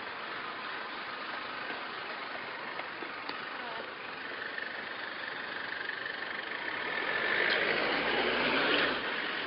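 Street traffic with vehicle engines running, swelling louder as a vehicle passes close about seven to nine seconds in, then dropping away quickly.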